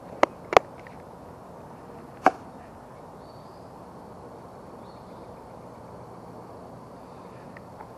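Three sharp clicks or knocks in the first two and a half seconds, the second the loudest, then a steady faint outdoor background.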